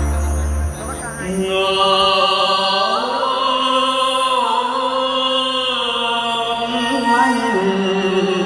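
Live stage song through a sound system: a singer holds long notes that glide up and down over a recorded musical accompaniment.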